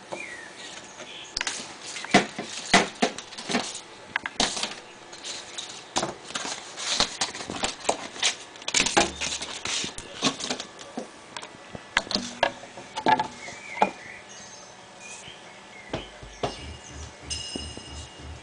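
Irregular knocks and clicks of vinyl records and the turntable being handled while the record is changed. Near the end a quiet, regular techno beat starts from the next record.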